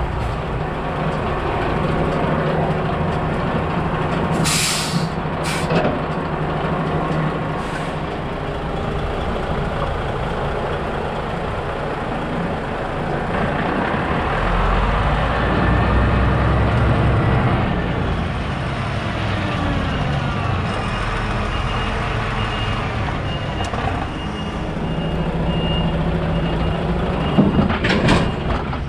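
DAF XF tractor unit's diesel engine running as the tractor pulls forward clear of its parked semi-trailer, with short sharp hisses of compressed air about five seconds in. The engine grows louder around the middle, and there is a brief clatter near the end.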